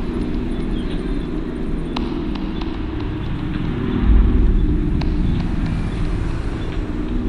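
Bus engine idling, a steady low rumble that swells about four seconds in, with a couple of faint clicks.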